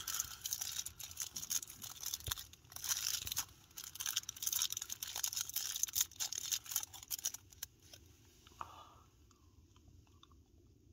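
Close crinkling and crunching, dense for about seven and a half seconds, then dying down to a few faint clicks.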